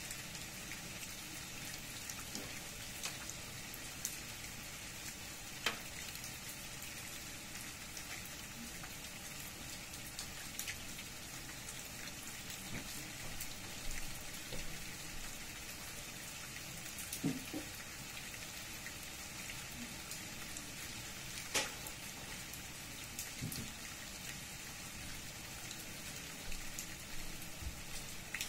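Steady rain falling on tree leaves and leaf-covered ground, with a few louder single drops landing close by, the clearest about 6, 17 and 22 seconds in.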